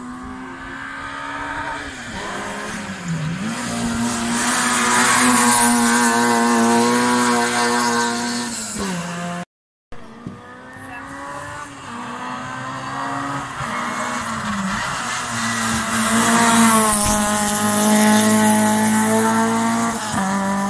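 Racing car engine at high revs approaching and passing close: its note dips briefly at a gear change, then grows loud and falls away as the car goes by. After a sudden cut, a second car does the same.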